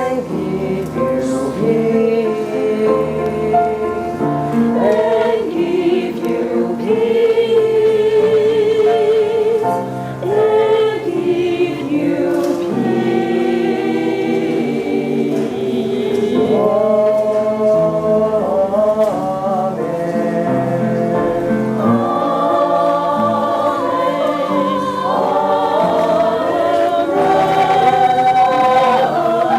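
A choir singing in several voice parts, with long held notes.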